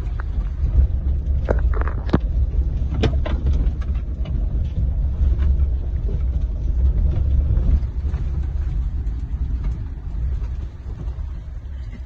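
Low, steady rumble inside the cabin of a Mahindra Thar driving along a rough jungle road, with a few sharp knocks and rattles between about one and a half and three and a half seconds in.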